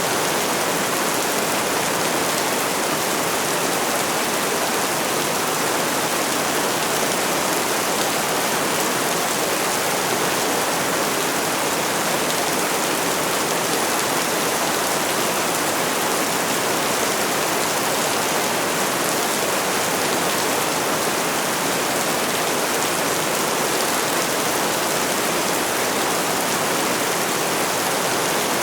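Heavy rain falling steadily on a roof, an even, unbroken hiss of rain.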